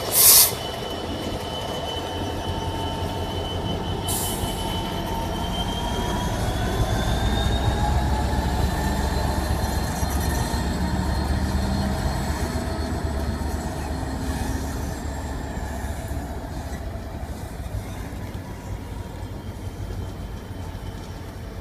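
GBRf Class 66 diesel-electric locomotive with a two-stroke V12 engine pulling away, hauling coaches, with a deep engine rumble and a whine that rises in pitch as it gathers speed. Its sound builds, then fades as it moves off. There is a sharp bang at the very start.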